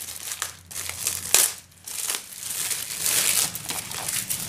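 Packaging crinkling and rustling as it is handled and put aside, in uneven bursts with a sharp crackle about a second and a half in.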